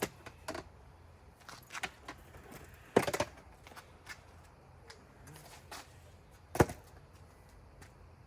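Scattered clicks and knocks of motorcycle parts and tools being handled. There is a quick rattle of several knocks about three seconds in, and one sharp knock, the loudest, about six and a half seconds in.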